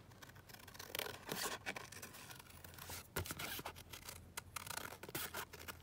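Scissors cutting through a paper envelope flap: a run of irregular snips and scrapes with some paper rustling.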